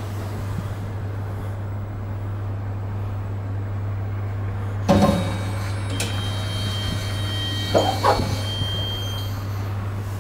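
A 2004 TH Hissi traction elevator running with a steady low hum. A thump comes about five seconds in. Near the end the car's sliding glass doors open with a faint whine and two clunks.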